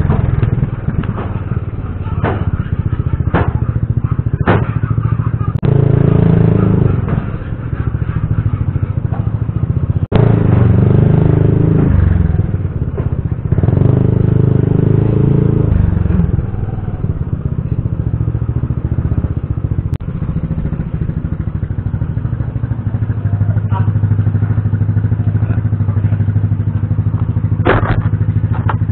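Yamaha motor scooter's engine running on the move, swelling several times as the throttle opens and easing off between, then running steadily at low revs near the end as the scooter pulls up. A few sharp knocks sound in the first five seconds, and another clatter comes near the end.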